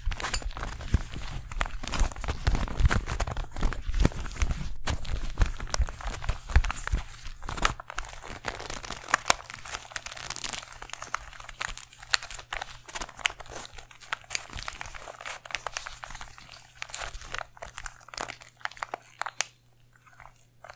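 Plastic Rubik's cube being twisted and handled close to the microphone: a dense run of rapid clicks and crackles, heavier for the first eight seconds or so, then thinning to sparser clicks near the end.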